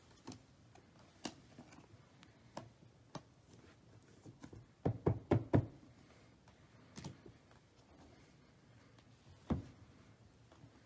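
Trading cards, some in clear plastic holders, being set down and tapped on a tabletop: scattered light taps, a quick run of four or five knocks about five seconds in, and a single sharper knock near the end.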